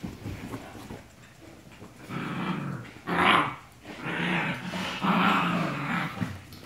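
Dogs play-fighting with rough growls. The first two seconds are quieter, then comes a run of growls about a second each, with a sharper, louder outburst about three seconds in.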